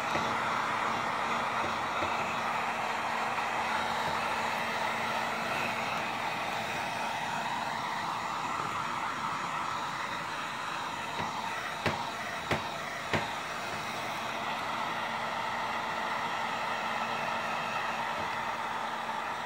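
Wagner electric heat gun running steadily: an even blowing rush over a low motor hum, aimed at mink-oiled leather boots to melt the oil into the leather. Three short clicks come a little past the middle.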